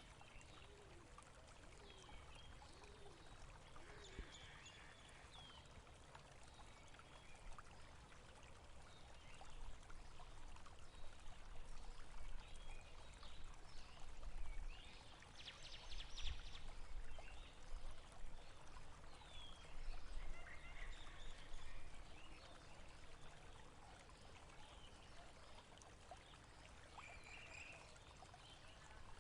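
Water flowing and trickling, faint and steady, swelling a little louder through the middle stretch, with a few faint high chirps over it.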